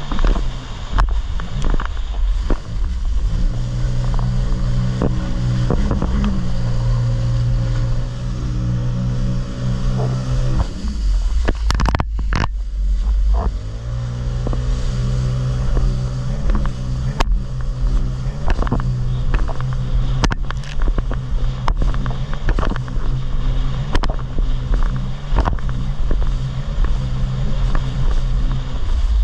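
Jet ski engine running at speed with a steady drone, with wind rumble on the microphone and frequent sharp knocks and slaps as the craft crosses the water. About eleven seconds in, the engine note drops away for a couple of seconds, then climbs back up.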